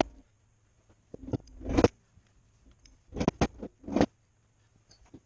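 A hammer striking the 1981 Honda GL1100 Goldwing's cylinder head, about six sharp blows in small groups, to break the stuck head free of the engine block.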